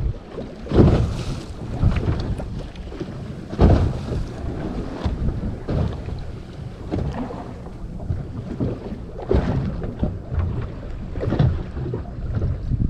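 Wind buffeting the microphone in uneven gusts on a small boat at sea, with water washing against the hull; the strongest gusts come about a second in and just before four seconds.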